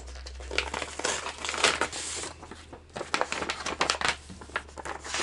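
Yellow paper envelope being opened and handled: a busy run of paper rustling and crinkling as a letter is pulled out and laid on the table.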